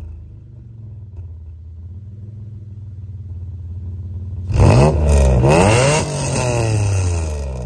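Naturally aspirated Dodge Stealth R/T V6 idling through a 3SX downpipe, high-flow cat and 2.5-inch Maximal single-shot muffler, with the muffler's silencer insert in. About four and a half seconds in, it is revved twice in quick succession, the second rev held a little longer, and then it falls back toward idle.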